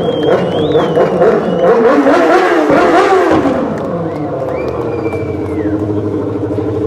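Stunt quad's engine revving up and down as it is ridden, then settling to a steady idle about four seconds in.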